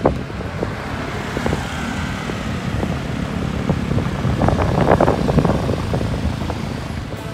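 Road traffic noise heard from a moving bicycle, with wind buffeting the microphone; a little louder about five seconds in.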